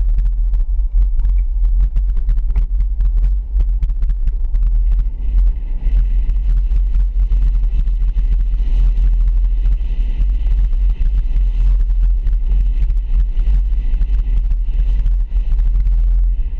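A vehicle driving slowly along a street: a steady, heavy low rumble of engine and road noise, picked up by a camera mounted on the vehicle. A faint higher hum joins about five seconds in.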